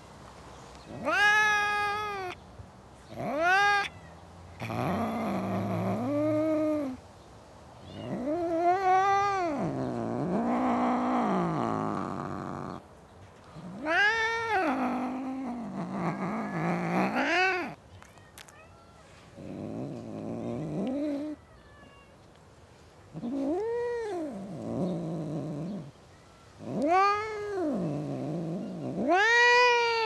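Cats yowling at each other in a fight: a string of long, drawn-out caterwauls whose pitch rises and falls, loud high yowls trading off with lower, quieter moaning calls.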